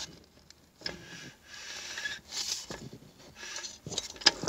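Gloved hand turning a freshly fitted part inside a TH350 automatic transmission case to check that it turns smoothly. It gives soft scraping and rubbing of glove on metal, with a light click about a second in and another near the end.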